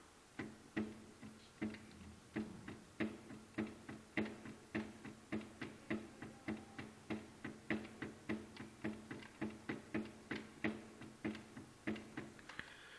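Repeated metallic clicks, about two to three a second and somewhat uneven, from a shaft bearing in a 139FMB moped engine knocking back and forth in its seat in the crankcase as the shaft is rocked by hand. The owner takes the bearing play in its housing for the cause of the loud hammering knock the engine makes when running.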